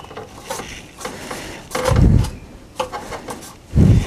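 Thin aluminum side cap trim handled and fitted together by hand: the sheet metal scrapes and rubs, with light clicks and two dull knocks, one about two seconds in and one near the end.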